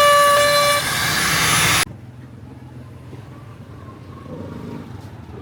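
A loud, steady horn-like tone over a hiss, cut off abruptly about two seconds in, leaving a faint low hum.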